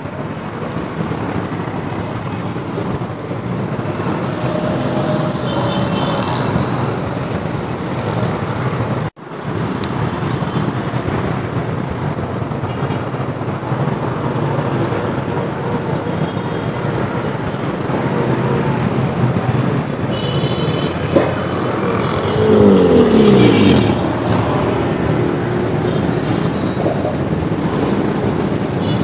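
Street traffic noise, steady, with a short dropout about a third of the way in. About three-quarters of the way through, a vehicle passes close by, its engine pitch falling as it goes past.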